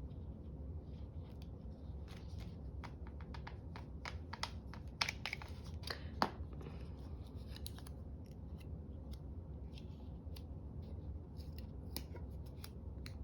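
Scissors snipping paper in a string of short, irregular cuts, with the sharpest snips around the middle.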